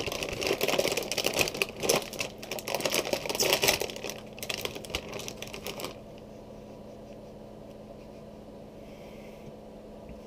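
Plastic snack-chip bag crinkling and crackling as it is pulled open and handled, for about six seconds. After that it stops and only a quiet steady low hum remains.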